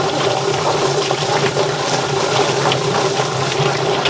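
A motor-driven machine running steadily with a constant hum, with water running and splashing over it and a few small clicks.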